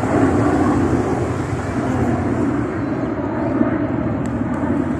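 Airplane flying overhead: a steady roar, loudest in the first second and easing slightly after.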